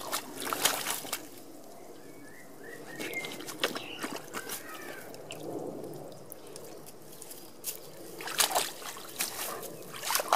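Water splashing and sloshing as a Briard dog wades and paws in a shallow garden pond, in several short separate bursts.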